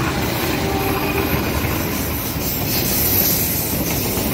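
Passenger coaches of the KA Penataran train rolling past, their wheels rumbling and clattering steadily over the rails, with a thin high squeal about halfway through.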